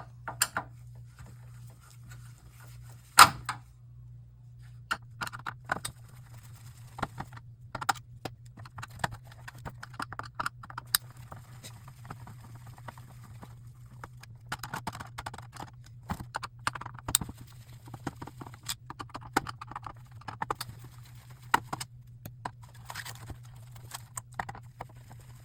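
Screws being taken out of a monitor's main circuit board with a hand screwdriver: scattered sharp clicks and short metallic rattles of tool, screws and sheet-steel frame, with one loud sharp click about three seconds in. A steady low hum runs underneath.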